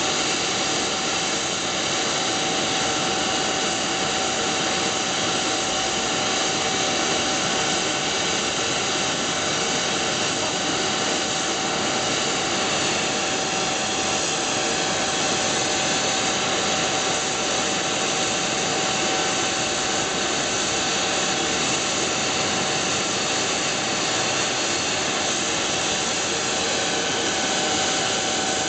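MD902 Explorer NOTAR helicopter's twin turboshaft engines running on the ground: a constant turbine whine with several steady tones over an even hiss.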